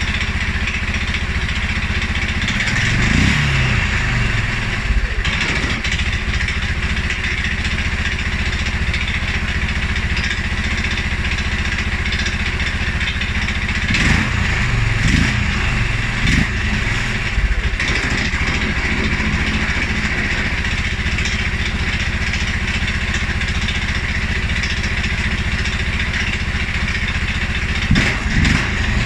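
2011 Polaris Sportsman 550 XP ATV's single-cylinder fuel-injected engine idling, blipped up in revs about three seconds in, several times around the middle, and again near the end, dropping back to idle each time. The owner's complaint is a stumble and a low, rough idle after revving, which persists even though the dealer found the EFI sensors, valve clearances, timing and fuel pressure in spec.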